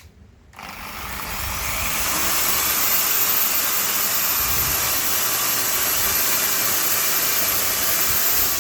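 A small electric motor with a fan spinning up about half a second in, building over a couple of seconds to a steady rushing of air with a high whine, then winding down at the end.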